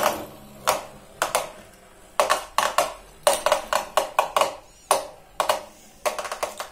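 Two small plastic battling tops clacking against each other and the wall of a plastic tub as they spin: irregular sharp clicks, about three a second.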